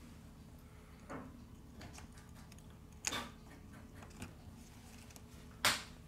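Sharp small plastic clicks and taps as a phone's plastic bottom cover is set into the Xiaomi Mi8 Lite's frame and pressed into place. There are four, and the loudest is a snap near the end.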